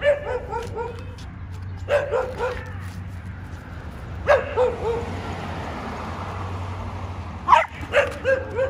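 Miniature schnauzer barking in four quick bursts of a few short barks each: at the start, about two seconds in, about four seconds in, and a longer run near the end.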